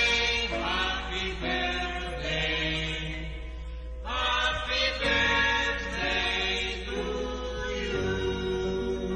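Slow background music with long held, chant-like notes that change every second or so.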